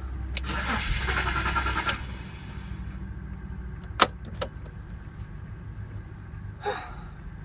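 2006 BMW X5 3.0i's straight-six being cranked by the starter for about a second and a half without catching: the engine won't start. A sharp click comes about two seconds later, followed by a second, fainter one and a short rustle near the end.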